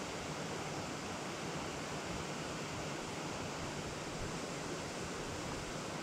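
Steady rushing of a rocky mountain stream's running water, an even hiss with no separate events.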